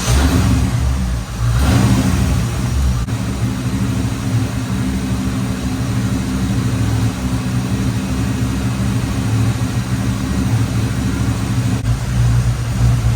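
A 1989 Chevrolet Corvette C4's tuned-port-injected 5.7 L V8 running at idle just after starting. The engine has a misfire and does not run well.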